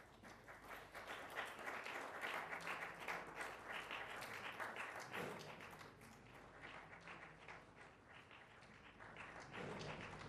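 Audience applauding. The clapping builds up about half a second in and thins out in the second half.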